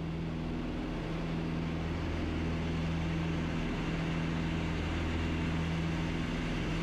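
Piper Twin Comanche PA-30B in cruise flight, heard from inside the cabin: its two four-cylinder Lycoming piston engines make a steady drone with a strong low hum.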